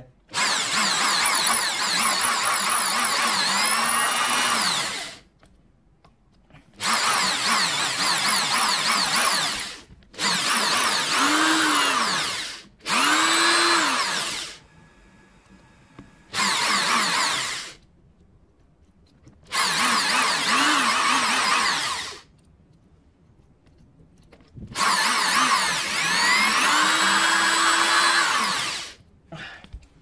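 Electric drill with a roughly 4 mm bit drilling out a stripped balisong pivot screw. It runs in seven bursts of a few seconds each, its motor pitch rising as it spins up and falling away each time the trigger is let go.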